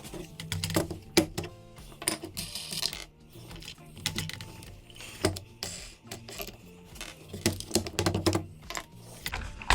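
Wooden boards of a homemade picture-frame clamp being knocked, wiggled and pried off a freshly glued frame: an irregular run of sharp wooden clicks and knocks with scraping between them. The boards are stuck because glue has bonded to them, as they were not waxed.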